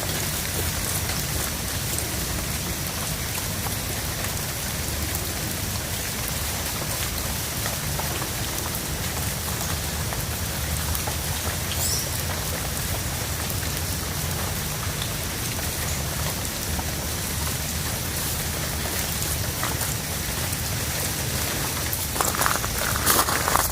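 Fine, steady rain falling, a constant hiss with scattered raindrop ticks and a low rumble underneath; a few short louder sounds come near the end.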